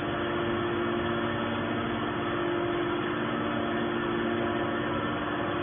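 Hydraulic scrap metal baler running with a steady, unchanging motor hum.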